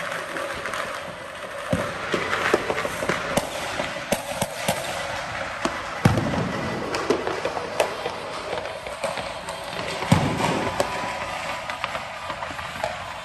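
Fireworks going off: a continuous crackle of firecrackers punctuated by sharp bangs and deeper booms, the biggest about 6 and 10 seconds in.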